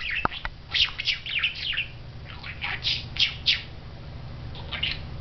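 Budgerigar chirping and chattering in quick groups of short, high calls, the courtship chatter a budgie directs at its own reflection. A steady low hum runs underneath.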